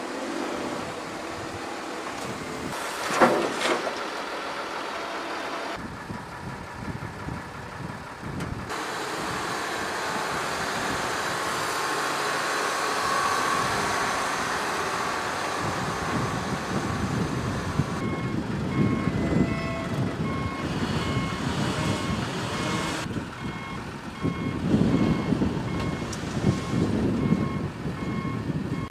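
Diesel engines of heavy earthmoving machines, a CAT 938G wheel loader and a dump truck, running, with a loud sharp clank about three seconds in. From a little past halfway, a dump truck's reversing alarm beeps steadily over the engine noise while the truck tips its load of soil.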